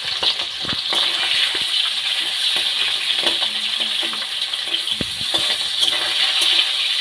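Prawns frying in hot oil in a metal kadai: a steady sizzle, with scattered clicks of a metal spatula against the pan as they are turned.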